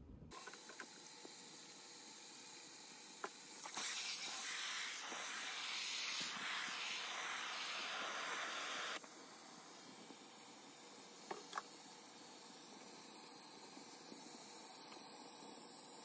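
Kitchen tap running into a sink filling with soapy water, a steady rush that stops abruptly about nine seconds in, with a few light clicks around it.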